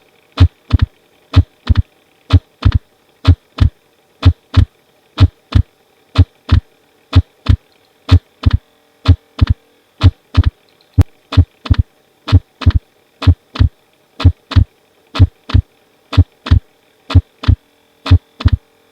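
Recorded heart sounds, a lub-dub about once a second in which the second sound is split into two close thumps: an abnormally wide split of the second heart sound (S2). A faint steady hum lies behind the beats.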